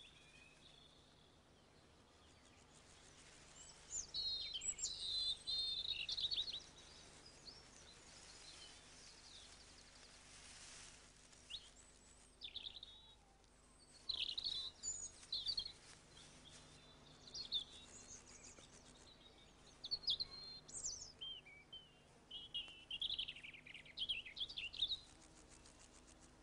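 Songbirds singing outdoors: several separate bursts of high, quick chirping song, each a second or two long, with short quiet gaps between them.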